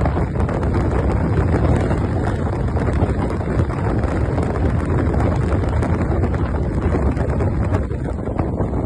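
Heavy wind buffeting the microphone on a moving motorcycle: a loud, steady rush, heaviest in the deep low end.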